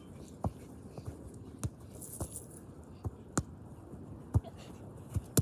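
A series of about eight short, sharp taps at uneven intervals over a faint steady hiss.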